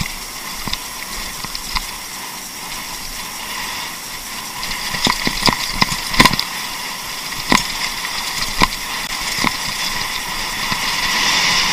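Mountain bike riding down a rocky gravel trail: steady tyre and wind noise with a faint steady buzzing hum, and sharp knocks and rattles as the bike hits rocks, coming thick from about five to ten seconds in.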